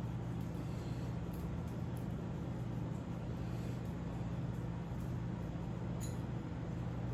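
A steady low hum over faint background noise, with a few faint light clicks.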